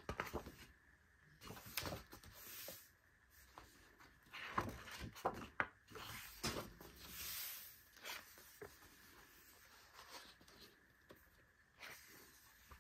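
Pages of a thick photobook being turned by hand: several soft paper swishes and rustles, with small taps and clicks of fingers on the paper between them.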